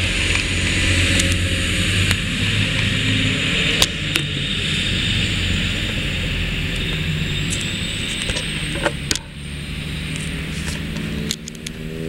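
Class 185 diesel multiple unit running as it pulls away, a steady low engine drone with rail noise that drops away about three-quarters of the way through, with a few sharp clicks.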